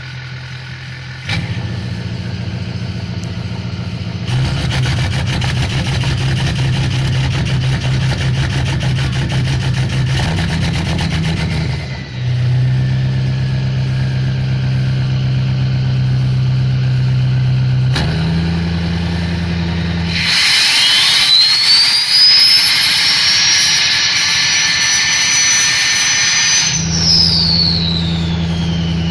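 Ford 6.0 Power Stroke V8 turbodiesel with a straight-pipe exhaust, idling and revved in stages. Near the end the turbo's whistle climbs to a high, steady pitch and holds for several seconds, then falls away as the engine drops back to idle.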